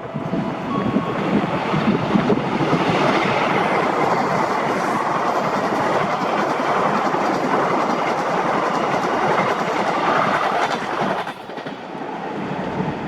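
Indonesian passenger train passing through a station at speed, its carriage wheels clattering over the rails in a dense, steady rush. The noise drops off sharply about eleven seconds in.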